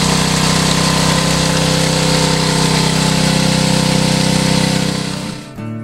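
Small gasoline engine of a highbanker's water pump running steadily, fading out near the end as acoustic guitar music comes in.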